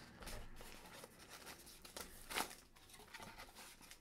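Small kraft cardboard box being handled and opened by hand: faint, scattered scrapes and taps of cardboard, the loudest about two and a half seconds in.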